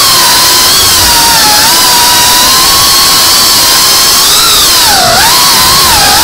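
GEPRC CineLog35 V2 cinewhoop's brushless motors and propellers whining, heard close from the drone's onboard camera. The pitch wanders with the throttle, dips sharply about five seconds in, then rises again.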